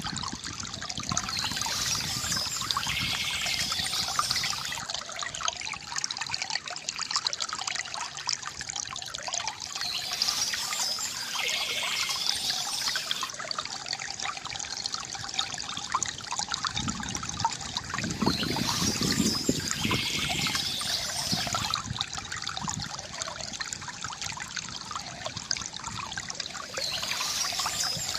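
Stream trickling steadily, with birds singing in bursts that come back about every nine seconds.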